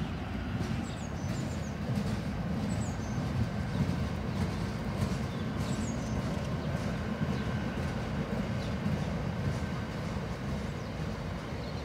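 Rake of loaded aggregate box wagons rolling past: a steady low rumble of steel wheels on rail, with occasional faint clicks.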